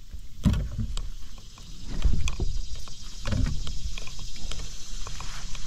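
Landing net and a netted bass knocking about on a plastic fishing kayak's deck: three dull thumps, about half a second, two seconds and three and a half seconds in, among light clicking rattles, with a steady hiss from about two seconds in.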